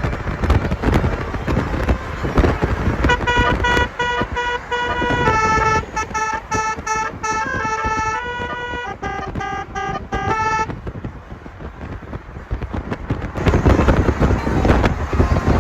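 Telolet-style basuri musical car horn playing a quick tune of short notes, starting about three seconds in and stopping a little past halfway. Loud rough noise runs before the tune and comes back near the end.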